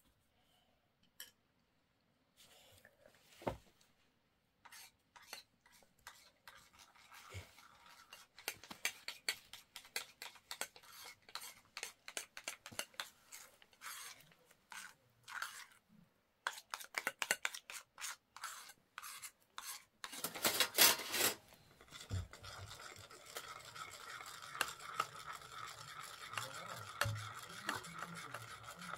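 A metal spoon scraping and clinking against small ceramic bowls as a thick paste is spooned and stirred into them: many short, quick clicks and scrapes. From about twenty seconds in, a steady hiss runs underneath.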